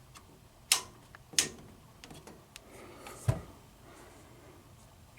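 Three sharp clicks with a few fainter ticks between them, from switches on an elevator car's service panel being worked.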